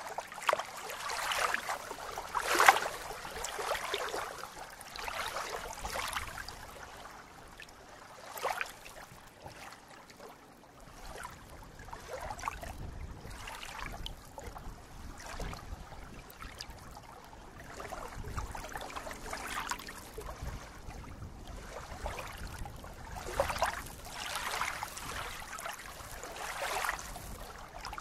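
Small waves lapping and splashing against a reedy lake shore, coming in irregular surges every few seconds, the strongest about three seconds in. A low rumble runs under the second half.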